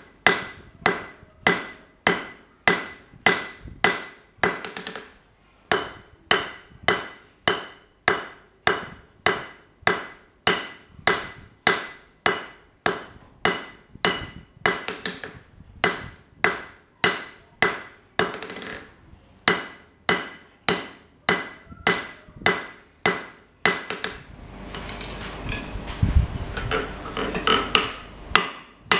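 Hand hammer striking hot steel bar on an anvil at a steady pace of about two blows a second, each blow ringing, with two brief pauses. Near the end the hammering stops for a few seconds of clattering and a thud as a tool is set on the anvil.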